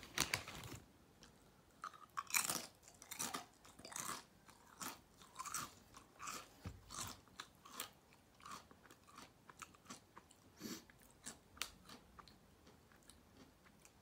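Crunchy chips being bitten and chewed: a loud crisp crunch right at the start and another about two seconds in, then a steady run of chewing crunches at roughly one or two a second that grow softer toward the end.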